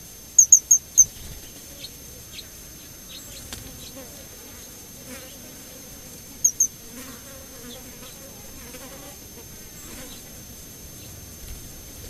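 A fly buzzing around the microphone, a wavering hum that comes and goes. Over it, a small bird gives short, sharp, high chirps: four quick notes near the start and two more about halfway through.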